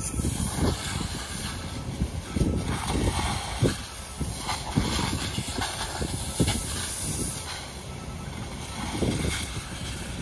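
Steady hiss of a fire hose stream spraying water onto a smouldering, steaming trash pile, with wind rumbling and buffeting on the microphone.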